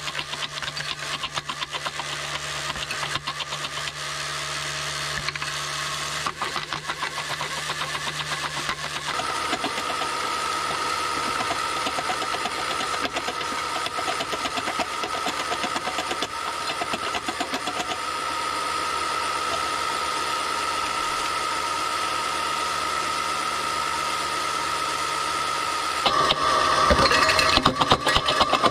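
Small electric motors of a model stone crusher and screening plant running, with a fast continuous rattle. A steady higher whine joins about nine seconds in, and the rattle grows louder and harsher near the end.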